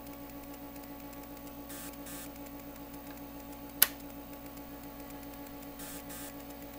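A single sharp click about four seconds in as a resolution push-button on a B&K 1805 frequency counter is pressed, over a steady electrical hum.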